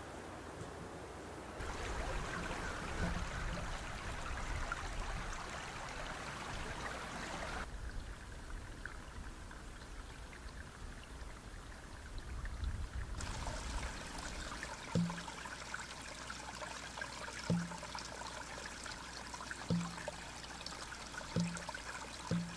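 A small creek trickling and running over rocks, with low wind rumble on the microphone in places. In the second half a short sharp tick sounds every couple of seconds.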